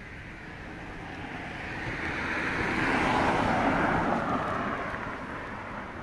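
A car passing on a nearby road: tyre and engine noise swells to a peak about three to four seconds in, then fades away.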